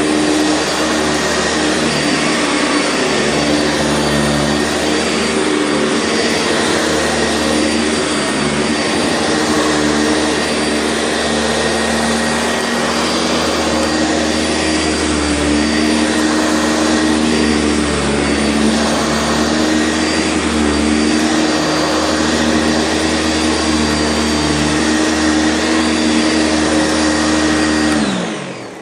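Sanitaire SC679 upright vacuum cleaner running steadily, its motor whine wavering slightly in pitch. Near the end it is switched off and the motor winds down, its pitch falling as it fades.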